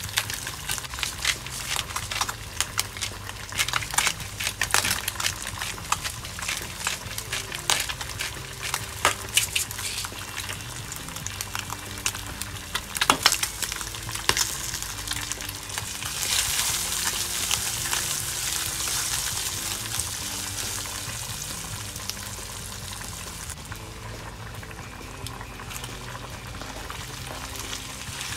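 Bacon, minced garlic and dried chili frying in oil in a nonstick pan. It sizzles with sharp crackles and pops for the first half, then settles into a steadier, hissing sizzle about halfway through.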